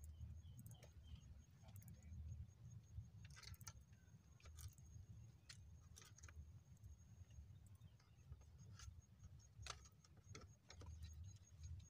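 Near silence: a low rumble with scattered light clicks and rustles from an angler handling his rods and a mesh keepnet, and a faint high steady whine from about three to seven seconds in.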